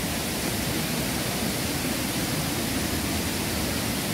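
Steady rushing of a waterfall, an even noise that holds level throughout.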